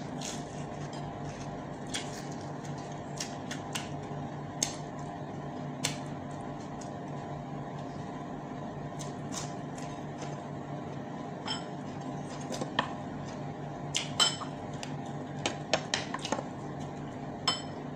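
Eating at a table: chewing and scattered clinks of a metal spoon against a pan and plates, coming thicker in the last few seconds, over a steady low hum.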